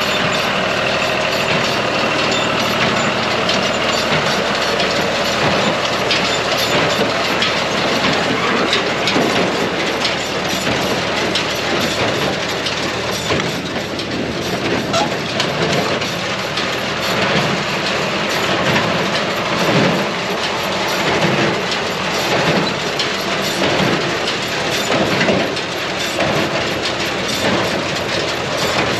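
Vintage John Deere 24T square baler running behind a tractor: steady engine noise under the baler's repeating mechanical clatter as it works through hay.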